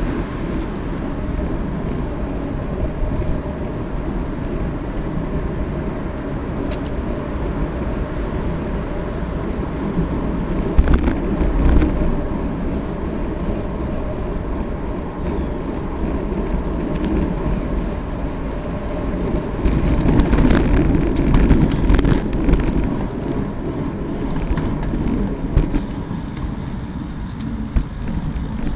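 Steady rumble of a road bicycle's tyres and frame rolling over pavement, with sharp rattling knocks from bumps, a brief cluster about ten seconds in and a longer stretch about twenty seconds in.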